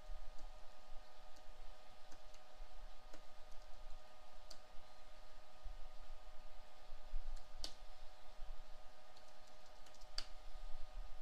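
Computer keyboard typing: sparse, irregular key clicks, with three louder keystrokes a few seconds apart, over a faint steady hum.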